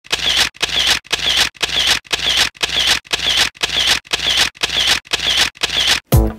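A rapid run of about a dozen short, scratchy mechanical swishes, two a second, each swelling and then cutting off sharply. A single low thump follows near the end.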